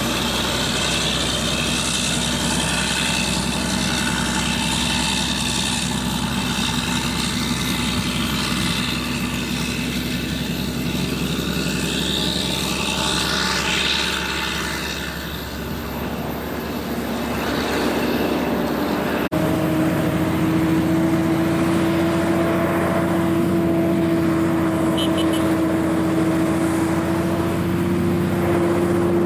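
Heavy diesel trucks hauling up a hill road: a loaded logging truck and trailer pulls past under load, its engine note rising and then fading as it moves away. After a cut about two-thirds of the way in, a heavy truck's engine holds a steady droning tone at constant revs.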